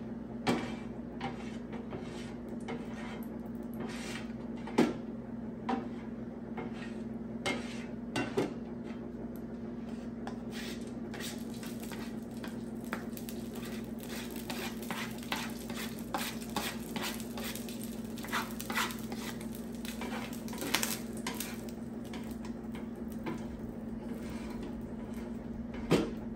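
Metal spatulas scraping and clacking on the steel top of a Blackstone electric griddle as it is scraped clean of food leftovers, with light sizzling from the hot surface. The scrapes and clicks come sparsely at first and grow busier about halfway through, over a steady low hum.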